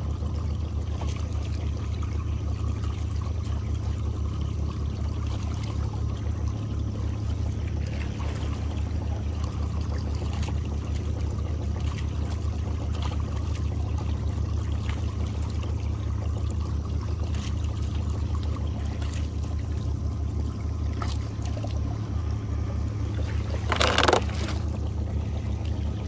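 Water pouring and trickling off a crab trotline as it runs up over the boat's side roller, over a steady low motor hum. About two seconds before the end, a short, loud splash as the dip net goes into the water.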